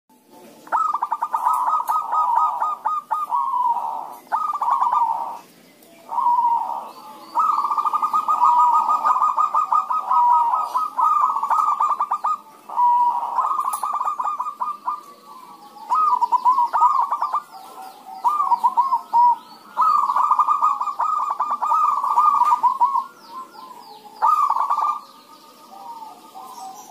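Several zebra doves (perkutut) singing and answering one another: rapid stuttering coos repeated in phrases of a few seconds, some overlapping, with short gaps between.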